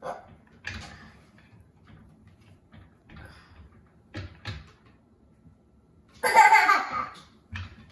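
A toddler giggling in a few short, faint bursts, then one loud, high laugh about six seconds in.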